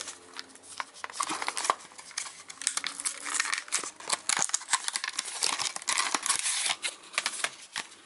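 Retail packaging of a RAM kit being opened by hand: a cardboard box and sleeve slid off, then a clear plastic clamshell handled and pried at, giving a run of crinkling, rustling and sharp plastic clicks.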